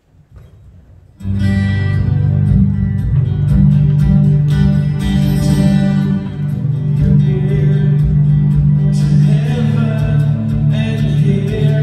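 Worship band guitars strumming the opening of a song, starting suddenly about a second in and then playing steadily.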